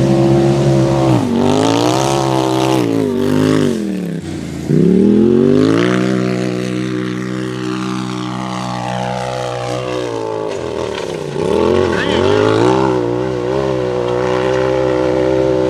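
Racing UTV engine revving hard under load, its pitch dipping and climbing back several times, most sharply about four seconds in and again near twelve seconds, and held high for several seconds in between.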